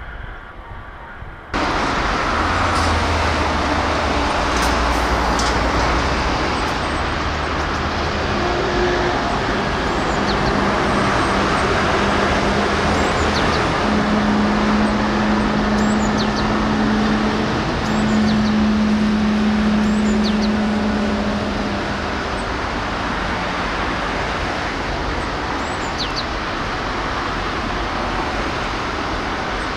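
Steady outdoor noise of motor traffic, which jumps up suddenly about a second and a half in. A steady engine hum holds through the middle and fades away near the end.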